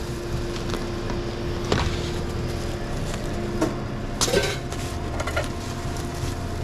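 Sandwich counter work sounds: a few sharp knocks and clinks of utensils or containers over a steady hum of kitchen equipment, with a steady tone in the hum that stops about halfway through.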